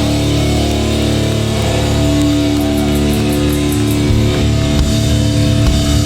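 Hardcore band playing live: loud distorted electric guitars holding notes over bass and drums, with no vocals.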